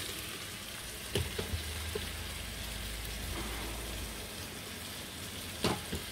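Chicken and chopped tomatoes frying in a pan on a gas hob: a steady, even sizzle, with two short knocks about a second in and near the end.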